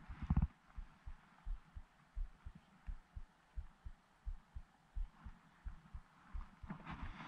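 Dull low thumps, fairly even at about one and a half a second, with a louder knock about a third of a second in, as a spinning reel is slowly cranked on a retrieve.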